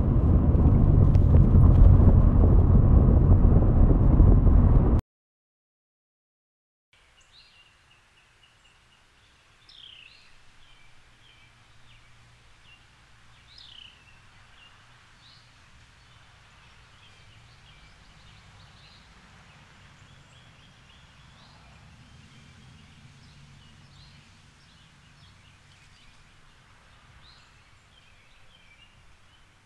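Quiet outdoor street ambience: small birds chirping again and again over a faint low hum of distant traffic. It opens with a loud, steady rumbling noise that cuts off suddenly about five seconds in, followed by two seconds of dead silence.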